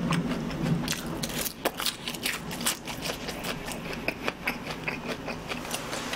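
A person chewing a mouthful of sauced fried chicken close to the microphone, giving irregular crunchy clicks several times a second.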